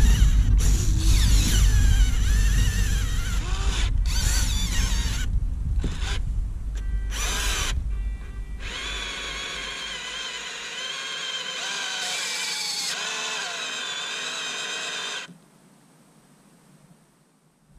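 The Huina 1580 RC excavator's electric motors whine, wavering in pitch as the arm strains to lift a large boulder out of the ground, over a heavy low rumble in the first half. The whine cuts off about fifteen seconds in.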